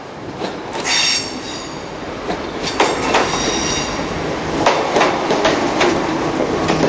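Royal Mail Class 325 electric multiple units, three coupled, running through the station. The wheels squeal about a second in and again about three seconds in, over repeated clicks and knocks from the wheels on the rails.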